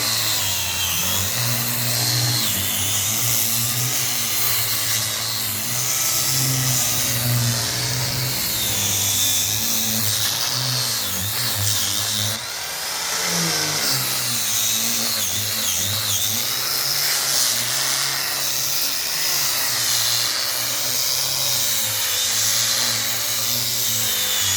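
Electric wood polishing machine running steadily, its motor hum wavering slightly, with a brief dip about halfway through.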